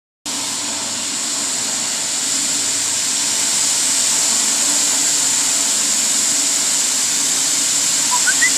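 1.5 ton-per-hour steam boiler running: a steady, loud hiss of steam with a low hum underneath.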